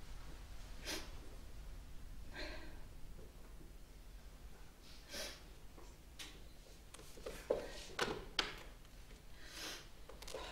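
A woman's quiet, audible breaths and sniffs in grief, with three short clicks close together about three-quarters of the way through.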